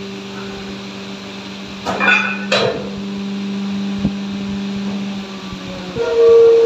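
Hydraulic alligator shear running empty: its motor and hydraulic pump hum steadily while the jaw swings down, with two metallic clanks about two seconds in as the jaw closes. Near the end the hum gives way to a louder, higher whine as the jaw lifts again.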